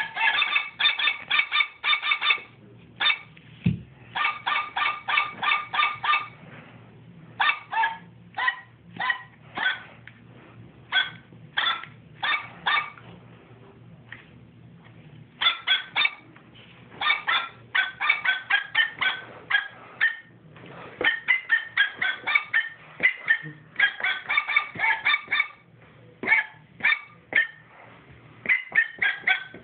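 Plush toy dog giving out a rapid run of short, squeaky toy notes at shifting pitches, several a second, in bunches with brief pauses, as if played as a tune.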